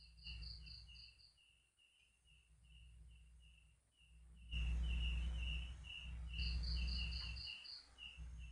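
Night-time animal chirping: a steady train of short chirps at one pitch, about two a second, joined near the start and again near the end by a higher, faster series of chirps. A low rumble swells up through the second half and is the loudest sound.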